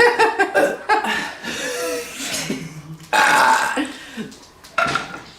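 A young woman belching loudly on purpose: a long rough burp at the start and another loud one about three seconds in, with smaller gurgling sounds between and after.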